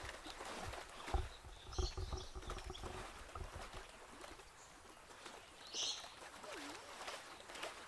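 Outdoor ambience with a few short, high bird chirps, the clearest about two seconds in and again near six seconds, over a faint hiss and scattered low rumbling bumps in the first half.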